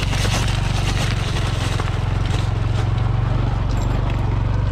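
Honda Trail 125's air-cooled single-cylinder four-stroke engine running at a steady, unchanging pitch, with scattered clicks over it.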